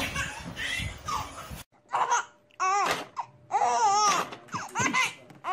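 Babies laughing: a toddler's laughter over a noisy room for about the first second and a half, then, after an abrupt cut, an infant's high giggles and squeals in short bursts.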